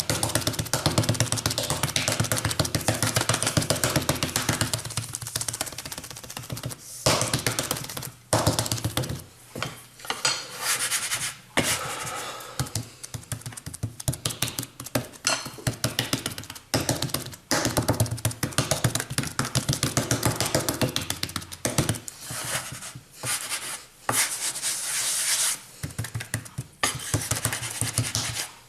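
Hands rapidly tapping and patting a damp slab of firework star composition flat on a work surface, in long runs of quick taps broken by short pauses.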